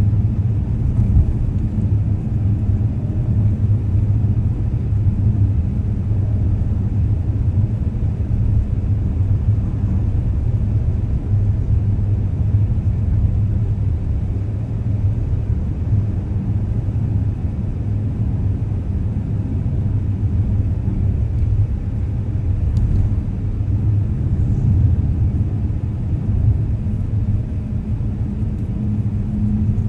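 A car driving along, heard as a steady low rumble of engine and road noise.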